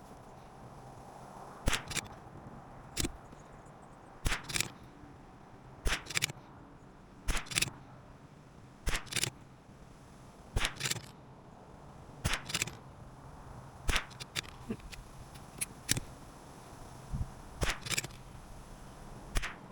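CZ 457 bolt-action .22LR rifle firing a steady string of about a dozen shots, each a sharp crack roughly every second and a half, several followed closely by a softer click.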